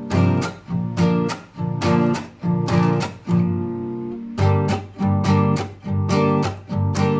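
Acoustic guitar strumming chords in a steady rhythm, with one chord left ringing for about a second midway before the strumming resumes.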